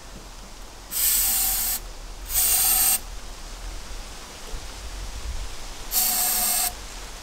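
Aerosol spray can fired in three short bursts of hissing spray, the first two close together and the third a few seconds later.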